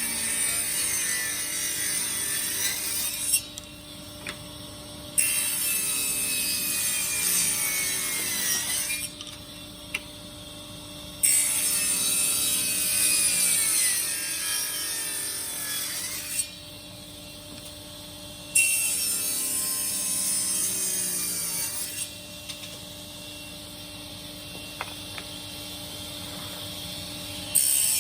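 Power saw cutting wood in repeated passes for beehive frame parts, about five cuts of a few seconds each with short pauses between. A steady motor hum runs underneath.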